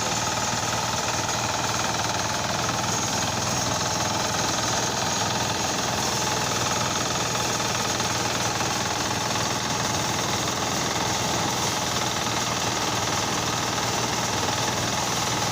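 A small engine running steadily at an even speed, with a fast, rattly beat.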